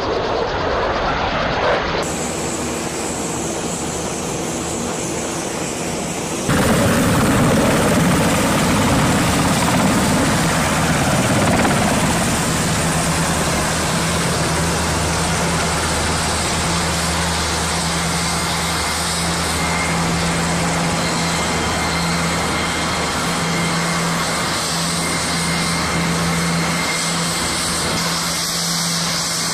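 Sikorsky H-60 Black Hawk–family helicopters flying overhead: steady rotor and twin-turbine noise with a low, even hum, louder and steady from about six seconds in. The first couple of seconds hold the sound of a jet passing low.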